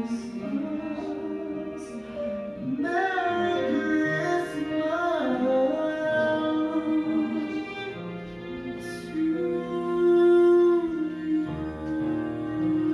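Background music: a woman's voice singing long, held notes, wavering at times, over sustained instrumental accompaniment.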